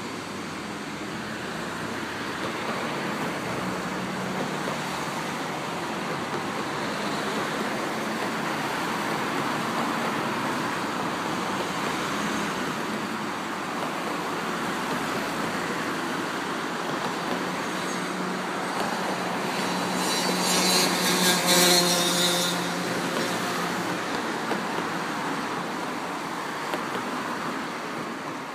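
Steady road traffic noise. About two-thirds of the way through, a louder vehicle passes with a pitched whine.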